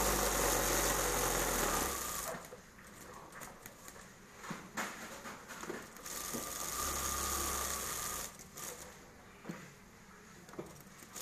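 Industrial sewing machine stitching in two short runs of about two seconds each, one at the start and one about seven seconds in. In between, fabric is shifted by hand with a few light knocks.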